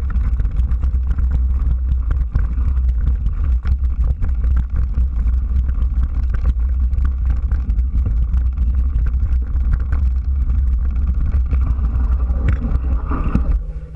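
Wind buffeting the microphone over the rumble and rattle of a mountain bike riding fast down a dirt trail, with frequent small knocks from bumps. It eases off shortly before the end.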